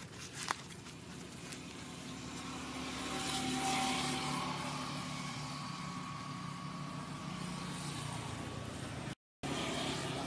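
A motor vehicle's engine passing nearby, growing to its loudest about four seconds in and then slowly fading. A single sharp tap about half a second in, and the sound cuts out for a moment near the end.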